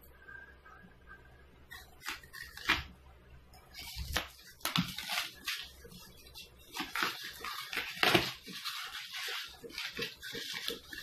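Expanded polystyrene packing foam squeaking and crunching as hands pull and break it out of a box, in irregular bursts starting about two seconds in.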